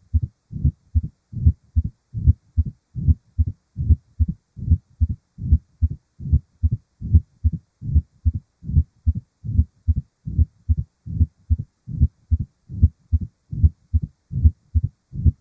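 Heart sounds of mitral stenosis heard through a stethoscope: a steady, regular rhythm of low-pitched lub-dub beats, with a decrescendo-crescendo diastolic murmur between them.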